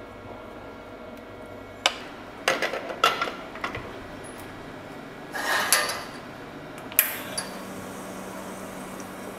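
Metal clacks and knocks of an espresso portafilter being handled and twisted into the group head of a commercial espresso machine, with a scraping rattle along the way, then a sharp knock with a short ring as glassware is set on the steel drip tray. A faint steady low hum comes in after that, the machine's pump starting the shot.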